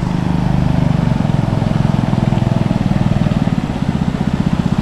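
Outboard motor of a wooden river longboat running steadily as the boat passes, a low engine drone whose firing pulses become more distinct toward the end.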